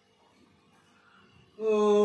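A faint steady hum, then about one and a half seconds in a person's voice starts a loud, long, drawn-out vocal sound.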